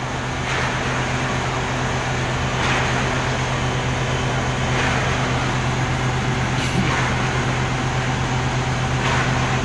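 Komatsu PC400 excavator's diesel engine running steadily with a constant low hum.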